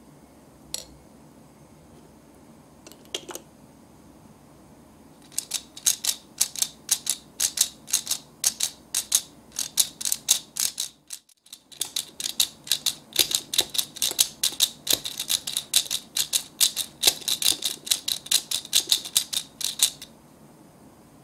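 Miniature plastic toy hand mixer clicking rapidly, several sharp clicks a second, as its beater is worked in a small plastic bowl of water beads, with a short pause a little past halfway. A couple of soft taps come before the clicking starts.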